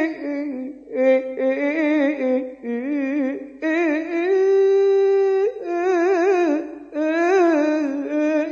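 A lone voice singing a slow, unaccompanied melody with wide vibrato and ornamented runs, holding one long steady note in the middle.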